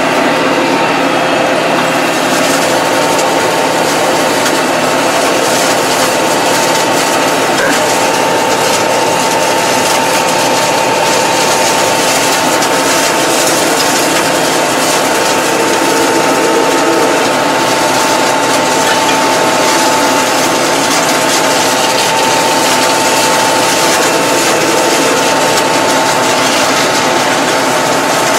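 Tractor engine running steadily while mowing, heard inside the cab, with a steady high whine from the running drive.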